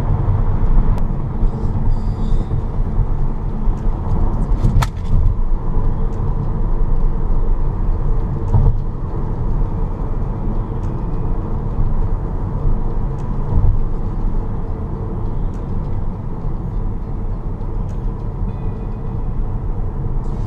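Steady road noise inside a Tesla electric car's cabin at highway speed: a low rumble of tyres and wind, with no engine sound. A single sharp click comes about five seconds in.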